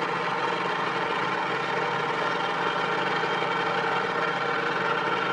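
A motor engine running steadily at an even idle-like pace, with no change in speed.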